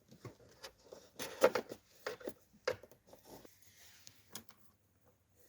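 Handling noise: a run of irregular light knocks, clicks and rustles, the loudest about a second and a half in, thinning out to a few faint ticks near the end.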